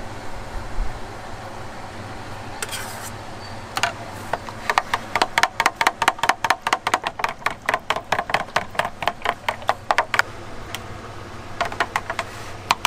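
A wooden stirring stick knocking against the sides of a plastic food pan while tomato pizza sauce is stirred. It makes a fast, even run of sharp clicks, several a second, for about five seconds, and a short burst more near the end, over a steady low hum.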